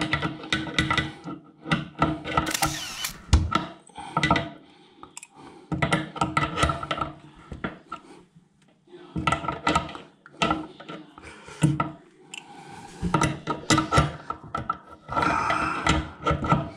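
Tools working on metal pipe fittings as they are done up: bursts of clicking, knocking and scraping, each about a second long with short pauses between.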